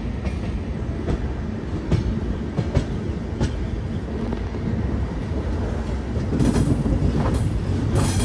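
Shatabdi Express passenger coaches running on the track, heard from an open coach door: a steady rumble with scattered clicks of wheels over rail joints. The rumble grows louder about six seconds in.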